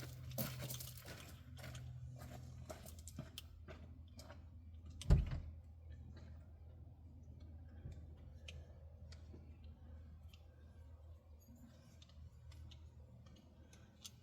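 Scattered small clicks and knocks of hand tools and parts being handled during fuel-line work, with one sharp knock about five seconds in. A steady low hum runs underneath.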